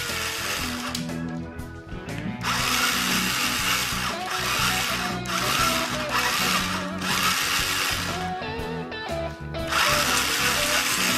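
Electric motor of a home-built 16-barrel rubber band Gatling gun running in several bursts with short pauses between, the whirring typical of its barrels turning as it fires or loads rubber bands. Background music plays underneath.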